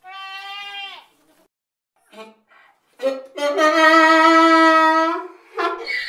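Goat bleating: a bleat of about a second at the start, then a long, steady, drawn-out bleat of about two seconds, which is the loudest sound here.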